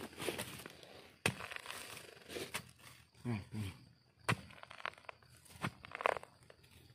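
A digging tool chopping and prying into clumpy red soil: a handful of sharp knocks spread a second or so apart, with earth breaking loose.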